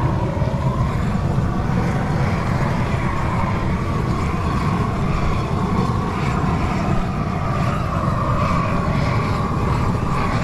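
Long-handled propane weed-burner torch running with a steady rushing noise as its flame singes the fur off marmot carcasses.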